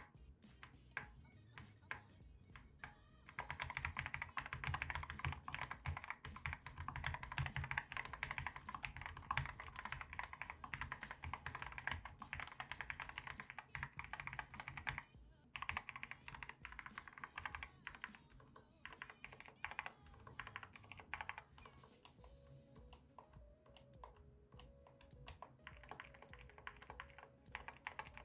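Typing on unlubricated Outemu GTMX Black middle-profile linear switches in an AK-650 keyboard with low-profile keycaps. A few isolated keystrokes lead into a long run of fast, continuous typing, which thins out to scattered keystrokes near the end.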